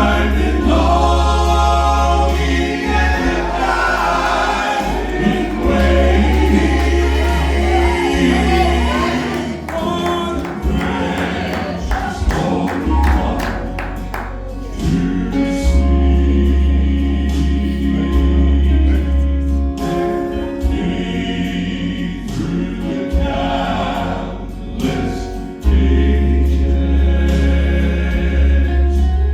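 Southern gospel quartet singing in harmony, with a strong low bass line under the voices.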